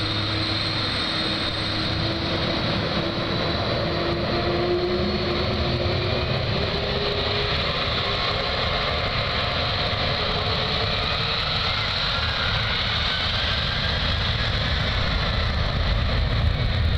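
Airbus A300B4-605R's twin jet engines spooling up to takeoff power as the airliner starts its takeoff roll: a steady jet roar with a whine that rises in pitch over the first several seconds, and a low rumble building toward the end.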